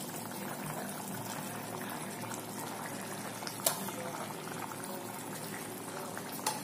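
Spicy dry fish and potato gravy bubbling steadily at a boil in a pan on a gas stove, with a single sharp click about three and a half seconds in.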